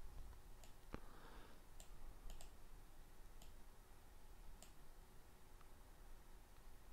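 Faint, scattered computer mouse clicks, about seven over several seconds, with a slightly louder one about a second in.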